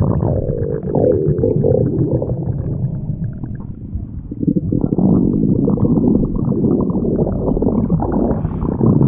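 Stomach growling, continuous and low-pitched, easing briefly about four seconds in and then coming back louder.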